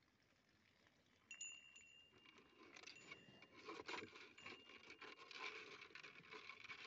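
Faint rubbing and scraping as a plastic bucket of water is handled and tilted, growing busier from about two seconds in. A faint high steady tone joins about a second in.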